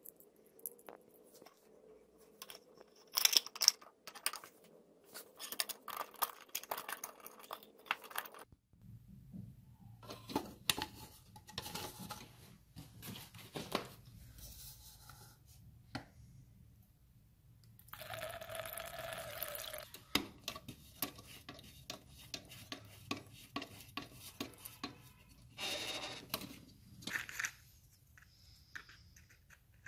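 Small metal clicks and knocks as the parts of a hurricane lantern are handled and fitted, with a few seconds of lamp fuel being poured into the lantern's font about two-thirds of the way through.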